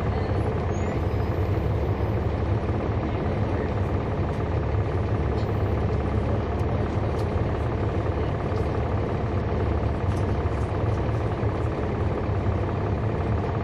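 Cummins ISL9 diesel engine of a 2011 NABI 416.15 (40-SFW) transit bus running at a steady speed, heard from inside the bus as an even, low drone.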